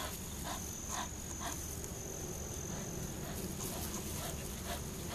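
A dog panting in short regular breaths, under a steady high-pitched insect buzz.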